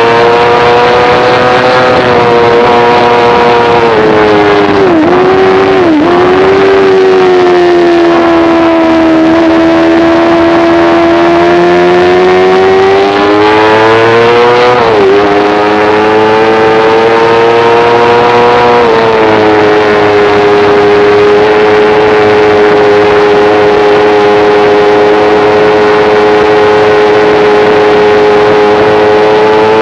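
A motorcycle engine at high revs under track riding. The pitch dips briefly about five, six and fifteen seconds in, sags slowly and climbs back in the middle, then holds steady and high for the last ten seconds.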